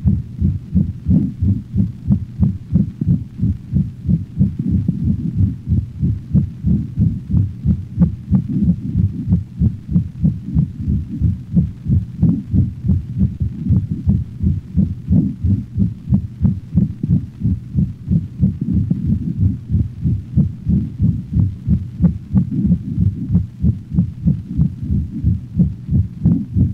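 A dog's heart heard by auscultation: fast, regular heartbeats with a crescendo-decrescendo murmur in each beat, the murmur of aortic stenosis. The first and second heart sounds stay audible through the murmur.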